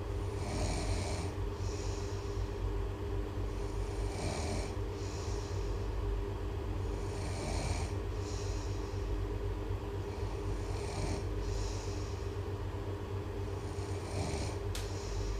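A person snoring in a slow, even rhythm: a drawn-in snore followed by a breath out, repeating about every three and a half seconds, over a steady low hum. A brief sharp click comes near the end.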